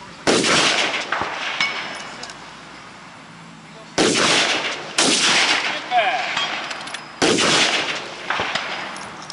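Four rifle shots, each followed by a long fading echo; the second and third come about a second apart.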